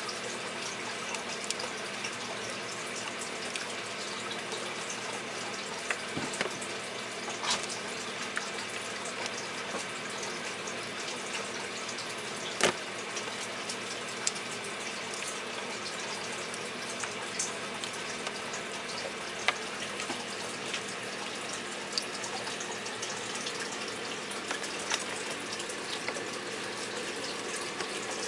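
Steady running water with a faint hum under it, broken now and then by a few sharp clicks; the loudest click comes about halfway through.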